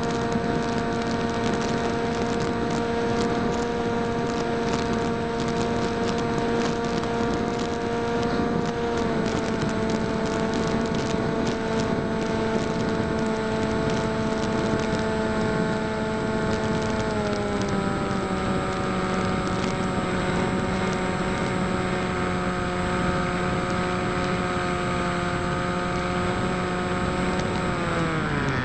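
Electric motor and propeller of a foam flying wing, heard from the onboard camera, running as a steady whine with wind rush. The pitch steps down about nine seconds in and again about seventeen seconds in as the motor slows, then winds down steeply near the end.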